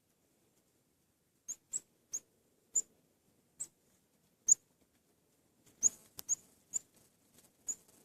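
Small wild bird hammering a seed or nut with its beak to crack it open: about a dozen sharp, high taps at an uneven pace, the loudest about halfway through.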